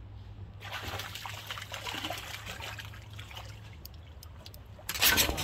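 Water splashing and trickling as a small hooked fish is reeled up out of the harbour and lifted clear of the surface. Near the end comes a sudden louder clatter of clicks and knocks as the catch is handled.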